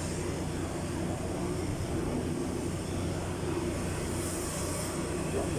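Steady low mechanical drone, like a running engine or machine in the background, with a faint hiss near the end.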